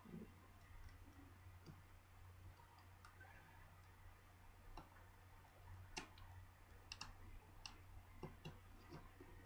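Faint, scattered clicks of a plastic pry tool working around the edge of a Samsung Galaxy Nexus's housing, the clearest about six to eight and a half seconds in, over a steady low hum.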